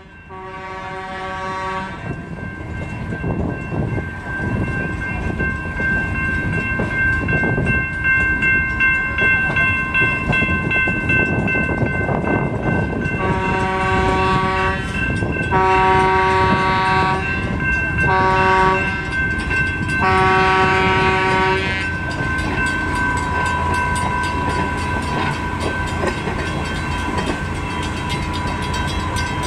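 Train horn sounding over the rumble of the moving train: one long blast at the start, then the long-long-short-long grade-crossing signal, the warning for a road crossing ahead. A steady ringing tone carries on after the horn stops.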